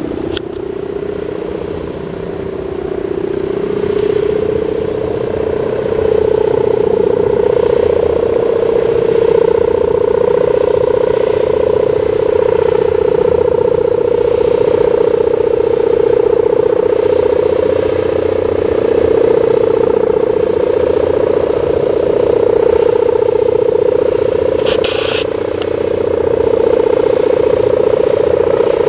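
Sendaren kite hummer, a taut plastic-film ribbon on a bow fixed to a large kite, droning in the wind: a steady buzzing hum with a fainter higher note above it, wavering slowly in pitch and loudness. It grows louder about five seconds in as the wind picks up.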